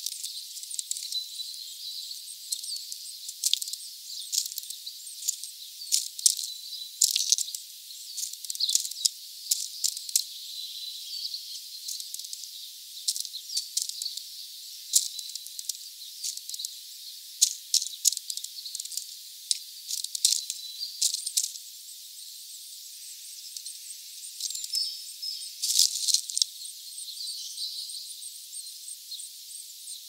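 A pigeon pecking through sunflower seeds in a feeder tray: quick, irregular clicks and rattles of beak on seeds and husks, thin-sounding, thinning out over the last third with a short burst about 26 seconds in.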